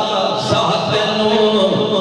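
A man's voice chanting in a slow, melodic style, holding long notes and bending between them.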